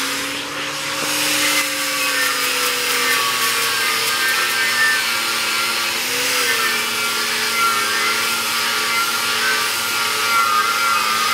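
Angle grinder with a plastic paint-stripping wheel, spinning up to speed at the start and then grinding old paint off the smoker's steel tank. The motor's pitch sags briefly about six seconds in, then holds steady.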